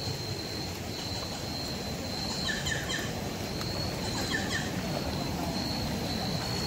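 Forest ambience: a steady high insect drone, with a bird giving two short bursts of chirps about two and a half and four seconds in, over a low rushing noise.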